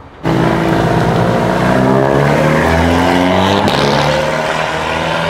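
Race car engine running at low revs as the car moves off, its note rising slightly a couple of seconds in.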